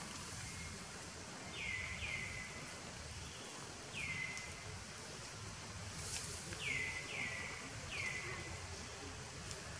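A bird calling repeatedly in the trees: six short notes, each sliding down and briefly held at the end, some coming in pairs, over a steady outdoor hiss.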